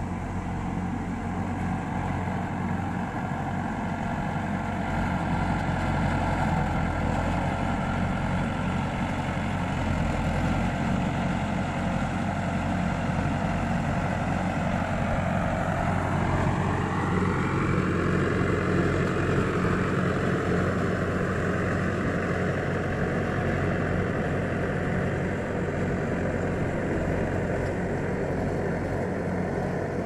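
Farm tractor's diesel engine running steadily under load as it drags a tillage implement through a flooded rice paddy. About halfway through, its note shifts higher and then holds there.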